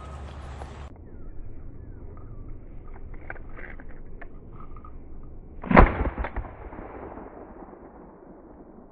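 A single shotgun shot about six seconds in, fired at a passing thrush, its report echoing and dying away over the next couple of seconds.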